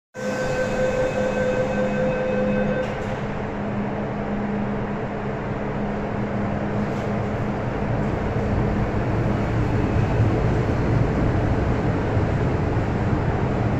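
MTR M-train electric multiple unit approaching and running into the station behind platform screen doors: a steady rushing rumble that slowly grows louder, its low hum strengthening in the second half. A few steady whining tones sound over it at first and stop about three seconds in.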